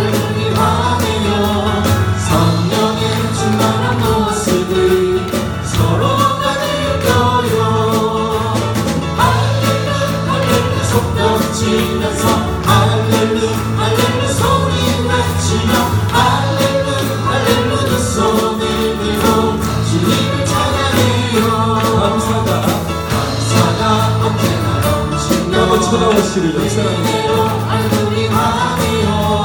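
Live worship band with a group of voices singing a Korean praise song over a steady beat, the congregation joining in.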